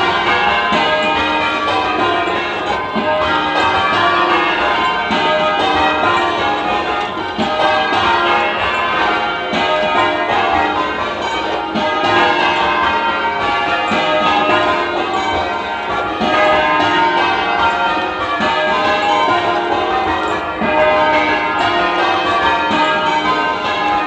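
Change ringing on a ring of ten church bells, tenor 19 cwt in E flat, cast by Warner and Mears: a continuous stream of overlapping bell strikes in steady rows, the loudness swelling and dipping every few seconds. The clapper knock is quite prominent on the back bells.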